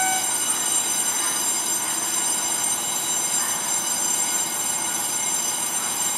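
Level-crossing warning bell striking its last two-tone strokes about twice a second, cutting off just after the start. A steady rushing noise from a Gakunan Railway train running past the crossing follows.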